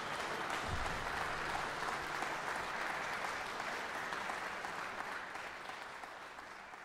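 Audience applauding steadily in a concert hall, the clapping thinning and fading away over the last couple of seconds.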